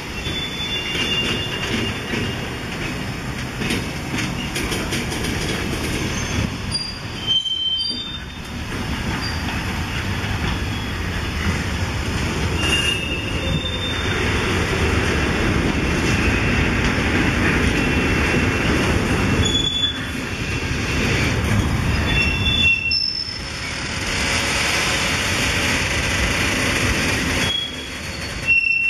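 Freight train of covered goods wagons rolling past, a steady rumble of wheels on rails with short high wheel squeals several times.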